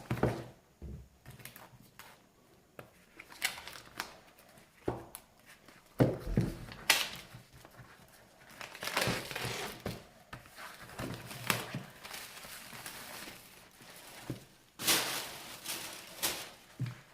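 Packaging being opened and handled: irregular crinkling and rustling with sharp clicks and knocks, loudest about six seconds in and again near the end.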